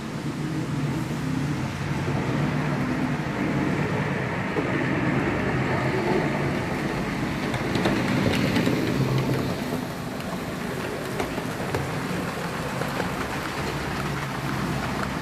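HO scale model train running along the track: a steady whir of the electric motor and rumble of the wheels, growing louder as it comes close about eight seconds in, then fading.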